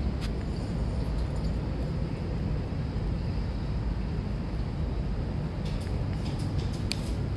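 Steady low outdoor rumble, like wind on the microphone or distant city traffic, with a few faint clicks and ticks near the start and toward the end.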